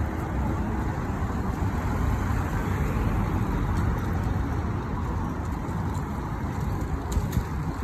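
Steady city traffic noise: cars and vans running through a busy intersection, an even rumble without distinct events.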